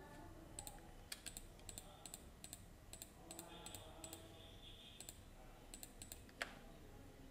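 Computer mouse clicking quickly and repeatedly, about twenty faint, irregular clicks, with one louder click a little after six seconds in.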